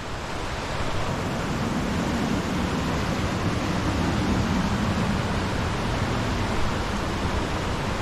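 Mountain stream rushing over rocks, a steady wash of water noise.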